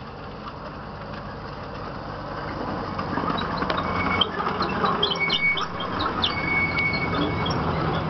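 Miniature railway locomotive's engine running and its wheels rumbling on the track as the train comes up and passes close by, growing louder a couple of seconds in. High thin squeaks come and go through the middle.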